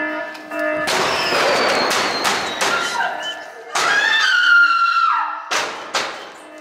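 Haunted-attraction scare sounds. A pulsing electronic tone breaks off into a long hissing blast. A loud, high scream follows and drops in pitch at its end, then a few thuds.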